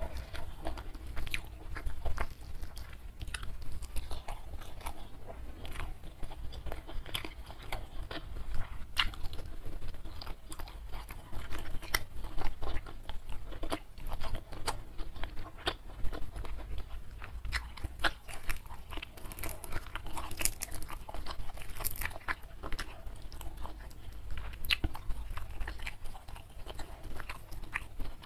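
Close-miked chewing of food, with irregular crisp crunches and wet mouth clicks.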